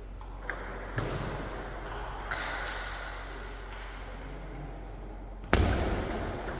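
Table tennis rally: a few sharp clicks of the celluloid ball striking bats and table, over the steady hum of a large hall. A loud thud about five and a half seconds in is the loudest sound, fading over about a second.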